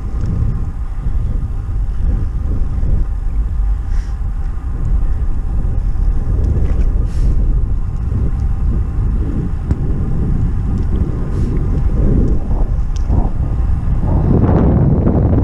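Wind buffeting the microphone of a camera carried on a moving bicycle: a steady low rumble that grows louder and fuller near the end.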